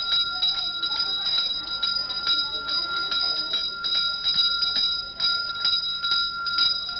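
Ritual bell rung continuously during a temple fire rite: a sustained ringing tone with quick, uneven strikes on top of it.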